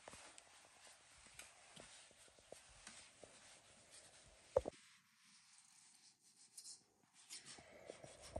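Faint rustle of a paper towel rubbing over plums as they are wiped dry, with one sharp click about halfway through.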